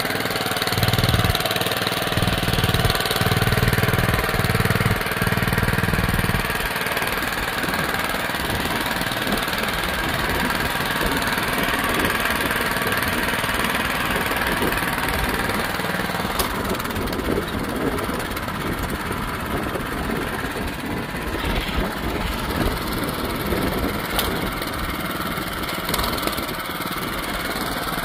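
Honda FJ500 DLX tiller's small petrol engine running steadily under load while its spring tines work through soil. A heavier, pulsing low drone in the first six seconds or so gives way to an even running sound.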